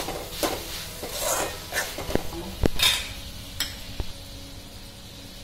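A metal spatula stirs and scrapes bitter gourd sabzi in a metal kadai, with a series of scrapes and clanks against the pan over a light sizzle. The strokes stop about three and a half seconds in.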